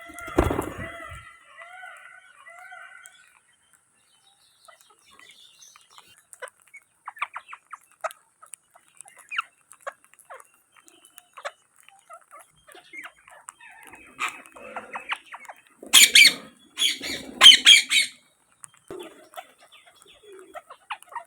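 Indian ringneck parakeets calling, with short chirps and clicking sounds scattered through. About two-thirds of the way in comes a run of loud, harsh squawks.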